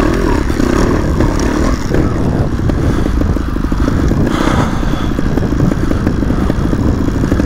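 Two-stroke 300 cc enduro motorcycle engine running at low revs with small throttle changes as the bike crawls over rough ground.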